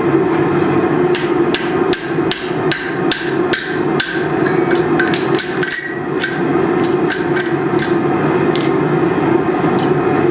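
Hand hammer forging steel on an anvil: a run of sharp metallic strikes, about two to three a second, that stops near the end, over a steady hum.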